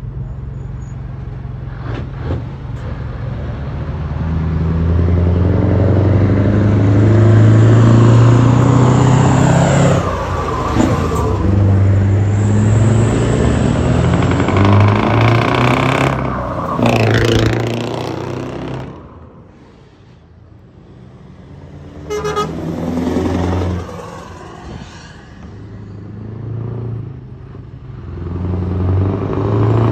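Several customised heavy trucks, among them a Scania, driving past one after another with loud engines and exhausts, and horns sounding in long held blasts. The sound swells as each truck passes and drops away briefly about twenty seconds in before the next one comes.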